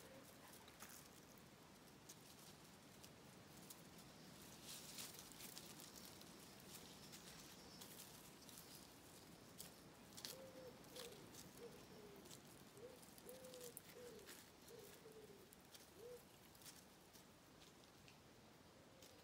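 Faint rustling and light crackles in dry leaf litter and twigs. From about ten seconds in, a pigeon coos a short phrase of about six soft notes.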